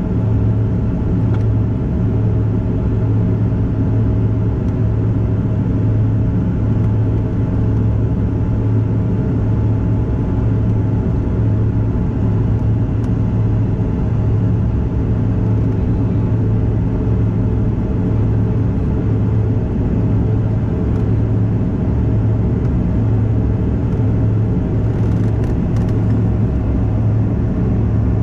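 Steady cabin drone of a Bombardier CRJ-200 in flight, its rear-mounted GE CF34 turbofans and the airflow making a constant low hum with faint steady tones over it.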